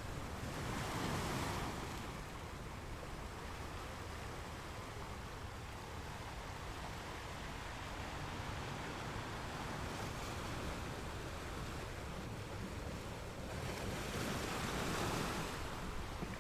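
Sea waves washing in: a steady rush of surf that swells about a second in and again near the end.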